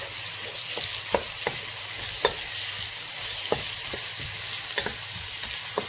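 Sliced onions sizzling in hot mustard oil in a wok while a wooden spatula stirs them, with a steady hiss and a few sharp clicks scattered through.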